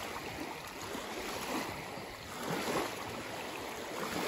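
Shallow lake water lapping and swishing around people wading, a steady hiss of small waves with a couple of slightly louder swells.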